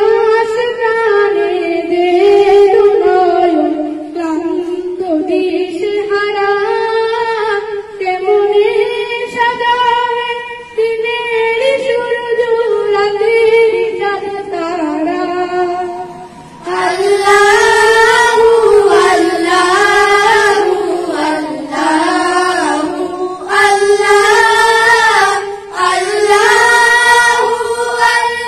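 Children singing a Bengali Islamic gojol unaccompanied, with no instruments. A single voice leads at first, then several voices sing together, louder, from a little past halfway.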